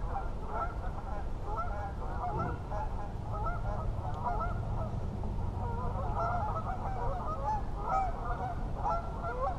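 A flock of geese honking, many short calls overlapping one another without a break.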